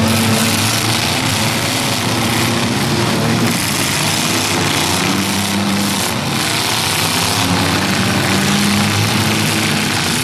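Loud, steady din of several demolition derby cars' engines running together, their tones fading in and out.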